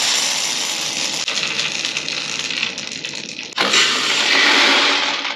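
Soybean sample rattling through a grain moisture tester as it is tested, a continuous grainy hiss that grows louder for about the last second and a half, then cuts off.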